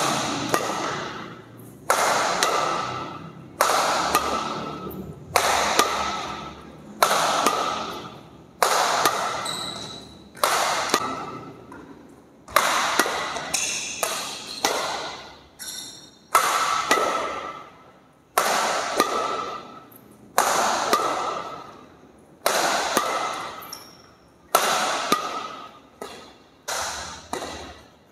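Badminton shuttlecocks struck by an Apacs Satellite 88 racket in a steady drill, a sharp hit about every one and a half to two seconds, each ringing out in the hall. A few lighter taps fall between the hits.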